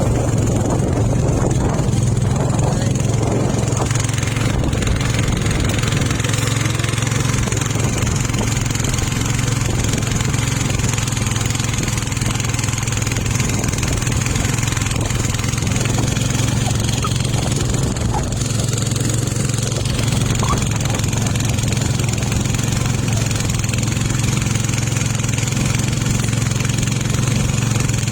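An engine running steadily at a constant speed, a low, unchanging drone.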